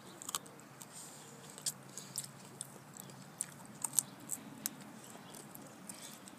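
Bacon strips being chewed and bitten: irregular sharp clicks and smacks, the loudest about four seconds in.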